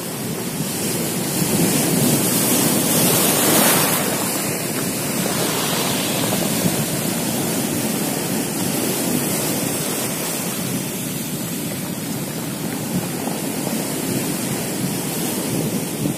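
Sea surf breaking and washing over a stony, rocky shore, a steady rush of foaming water that swells loudest about three seconds in, with wind buffeting the microphone.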